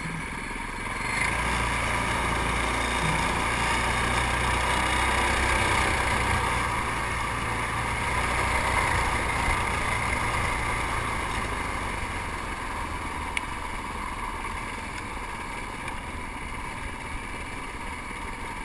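Racing kart's engine running under way, heard from on board the kart. It gets louder about a second in and eases off over the second half as the kart slows.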